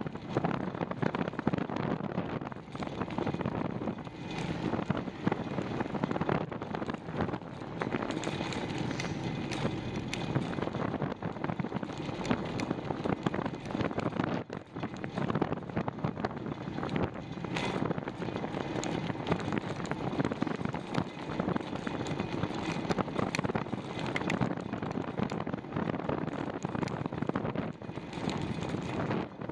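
Wind rushing over the microphone of a bicycle being ridden on a gusty day, an uneven, unpitched noise that swells and dips.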